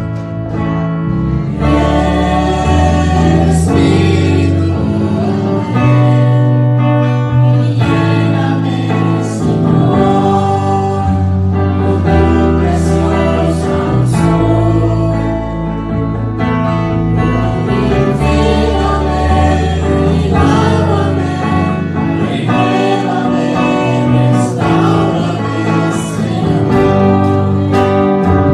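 A young woman singing a Spanish-language worship song into a microphone, with a man's voice singing along, over live instrumental accompaniment with sustained bass notes.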